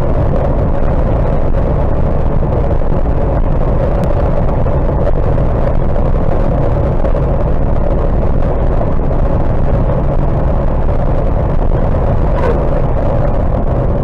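Steady engine and road noise inside a vehicle's cab cruising at highway speed.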